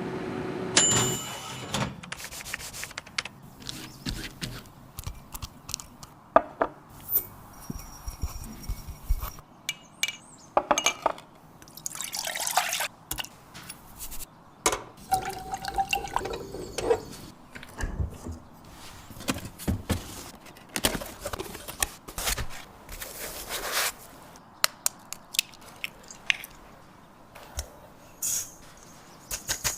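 Baking preparation sounds: scattered clicks and knocks of utensils and containers, with liquid dripping and pouring.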